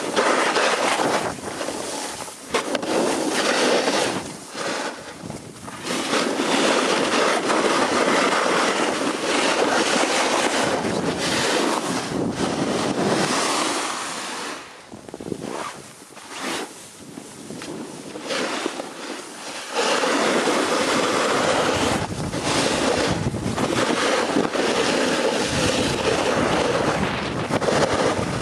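Rushing wind on the microphone during a fast downhill run on packed snow, mixed with the hiss and scrape of edges sliding over the piste. The rush eases off twice around the middle, then comes back full.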